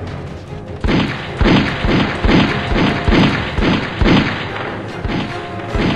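A fast string of gunshot sound effects, about two to three shots a second from about a second in until about four seconds in, then one more near the end, over background music.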